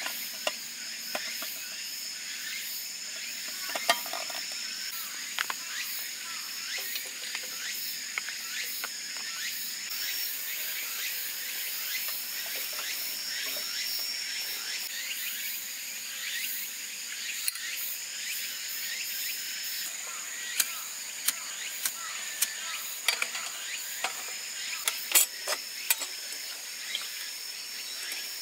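Insects trilling steadily at two high pitches, the lower of the two stopping and starting every few seconds, over a light hiss. Scattered sharp clicks and small metallic knocks from handling camp cookware and an oil lantern, more frequent in the last third.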